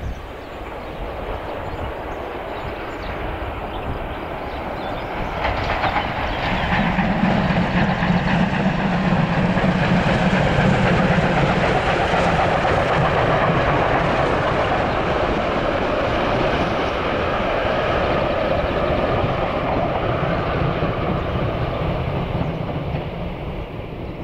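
Steam train with passenger coaches passing; its rumble builds about five seconds in and then holds steady.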